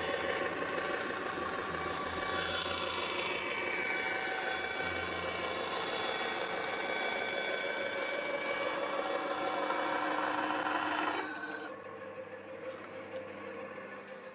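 Full Boar benchtop band saw cutting through a wooden board at a 45° mitre, the blade working through the wood with a dense, whining cutting noise. The cutting noise stops abruptly about eleven seconds in as the blade clears the wood, leaving the saw's motor running more quietly.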